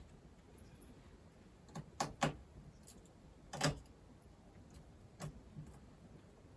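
Scattered small clicks and taps of a laptop's internal cable connectors being unplugged from the motherboard: a few isolated clicks, the loudest a little before the four-second mark.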